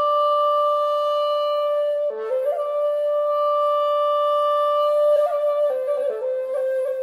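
Background music: a solo flute melody of long held notes, each sliding in with a short ornament, breaking into several shorter stepping notes near the end.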